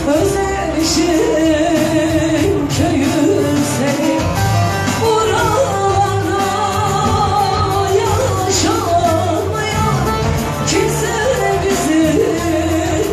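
A woman sings live into a microphone, amplified over a band with keyboard accompaniment and a steady beat. Her melody wavers and ornaments around each note.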